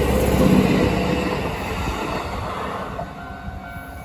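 A train running past on the rails, its noise dying away as it moves off.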